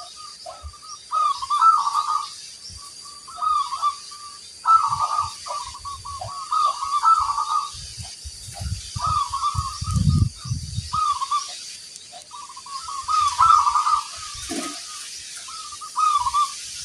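Zebra doves (perkutut) cooing: repeated rolling coo phrases, one after another and sometimes overlapping, with a faint steady high whine behind and some low rumbling around the middle.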